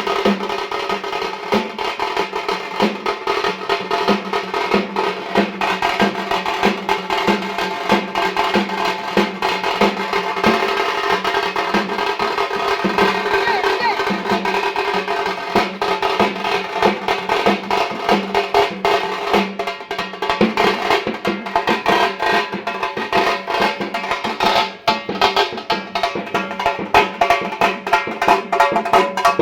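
Band music with fast, dense drumming and a sustained melody line over a steady low pulse.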